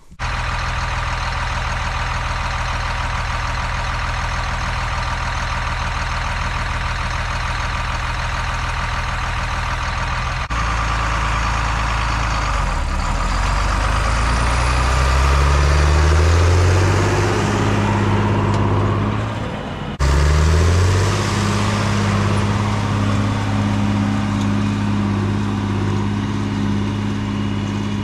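John Deere 4960 tractor's six-cylinder diesel pulling a field cultivator under load. It runs with a steady engine note that twice climbs in pitch as the engine speeds up, once about a third of the way in and again about two-thirds in.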